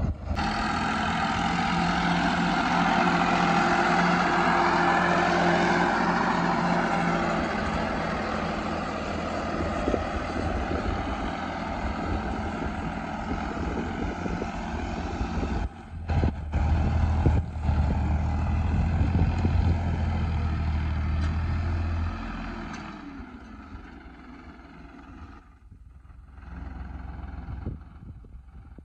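Diesel tractor engine working steadily under load as it drags a karaha, a rear-mounted soil scraper, through wet earth. It grows much quieter over the last several seconds as the tractor pulls away.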